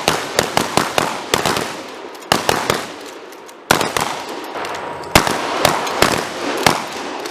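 Shotguns fired by several shooters on a firing line, in a ragged string of overlapping blasts, each with an echoing tail. The heaviest blasts come about two, three and a half and five seconds in.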